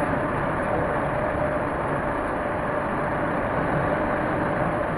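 Steady road and engine noise heard inside a moving vehicle's cabin, with a faint steady hum running under it.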